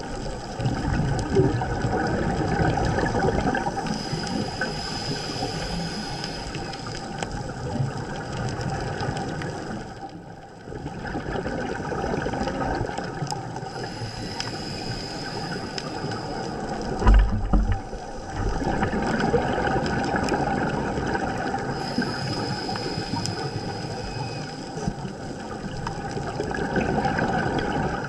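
Scuba diver's regulator underwater: exhaled bubbles gurgle in repeated breaths, with short pauses between them and a brief low thump about 17 seconds in.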